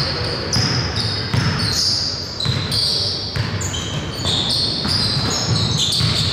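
Basketballs bouncing on a gym floor in irregular low thuds, with many short high-pitched sneaker squeaks over them.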